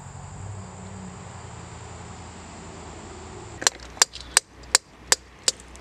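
Hand hammer striking a rock, splitting stone to look for fossils: six sharp metal-on-stone blows, about three a second, starting a little past halfway. Before them only a faint steady background hiss with a thin high tone.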